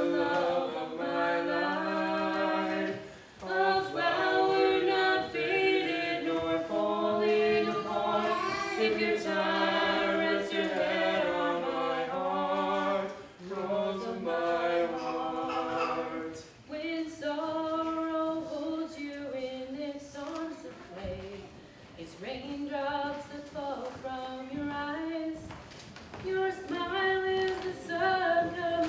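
A cappella vocal group singing a slow song in harmony, several voices held on long notes with no instruments.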